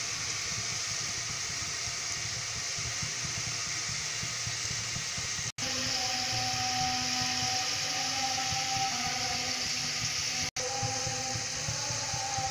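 Sliced onions frying in hot oil in a pot: a steady sizzling hiss as they cook toward golden brown, broken twice by a very brief gap.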